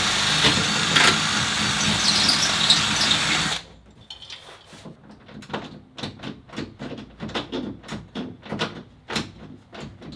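Cordless drill running steadily, with a high whine, for about three and a half seconds, then stopping abruptly. It is followed by a run of irregular light clicks and knocks from hand work on the bumper mounting.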